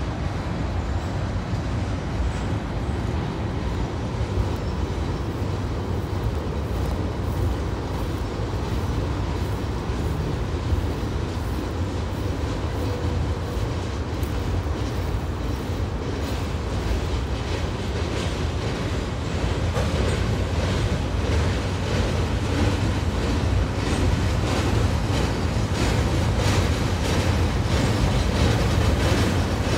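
Empty freight cars rolling across a steel truss railroad bridge: a steady low rumble with a rhythm of wheel clicks over the rail joints, growing louder over the second half.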